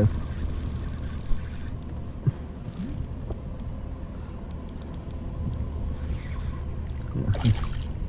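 Steady low rumble of wind and water around a fishing kayak at sea, with scattered small clicks and knocks from handling the tackle and a couple of brief rustling bursts.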